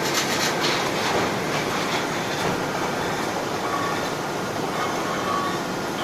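Steady loud industrial machinery noise: a dense roar with rattling, clanking strokes in the first second or so.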